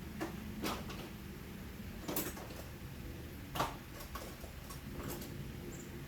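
Scattered knocks and clicks of hard objects being handled and set down, about half a dozen spread over the few seconds, the loudest about three and a half seconds in, over a steady low hum.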